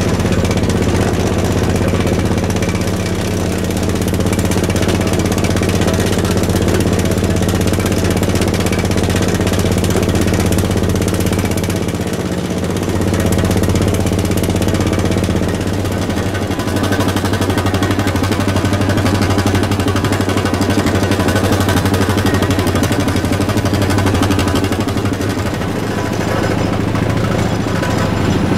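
HQ pole drill on a utility derrick truck running steadily as it drives a utility pole into the ground, a loud steady machine drone over the truck's engine. Its note shifts a little about halfway through.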